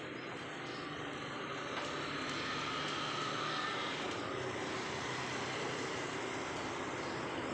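Kitchen tap running steadily into the sink, a continuous rushing of water.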